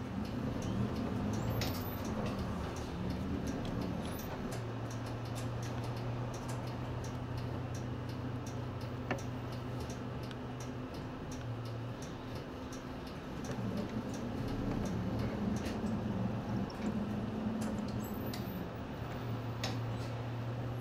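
Nissan Space Runner city bus running, heard from the front of the cabin: a steady low engine hum whose note rises and falls near the start and again past the middle, with a run of light ticks throughout.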